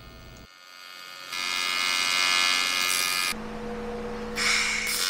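AC TIG welding arc on cast aluminum, a steady buzz starting about a second and a half in as filler rod is fed into the puddle. Its tone shifts about halfway through.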